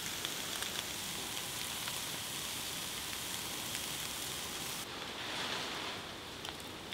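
Food sizzling on a barbecue grill: a steady hiss with small crackling pops. About five seconds in the sound cuts to a softer, duller hiss.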